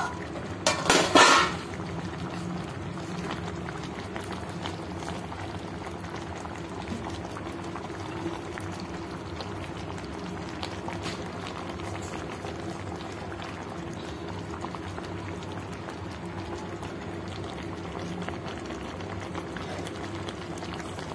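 A metal pot lid clatters as it is lifted off about a second in. Then a thick fish curry bubbles steadily at a simmer in the pot.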